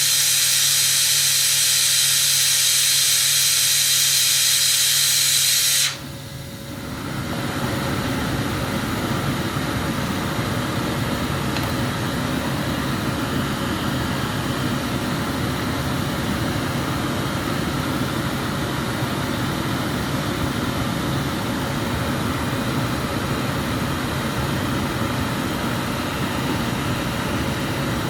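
Loud high-pitched hiss that cuts off suddenly about six seconds in, then a glassblower's gas burner flame running with a steady, even rushing noise.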